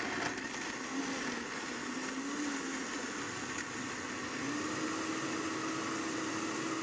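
Countertop blender running, blending leafy greens, fruit and juice into a green smoothie. The motor's pitch wavers at first, then rises a little and holds steady about four and a half seconds in, as the contents turn into a smooth liquid.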